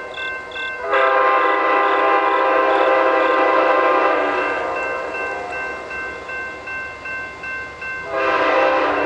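Approaching freight locomotive's air horn sounding for a grade crossing: a chord that swells into a long, loud blast about a second in, trails off around four seconds in, and starts another blast near the end. A crossing bell dings steadily underneath.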